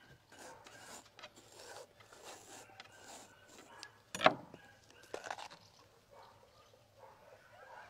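Crisp flesh of a yellow bell pepper cracking as its stem and core are pressed in by hand, with soft handling and rubbing on a wooden board. One loud sharp crack about four seconds in, and smaller cracks about a second later.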